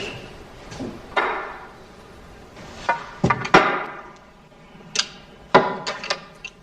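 A series of sharp clicks or knocks, irregularly spaced, each with a short ringing tail.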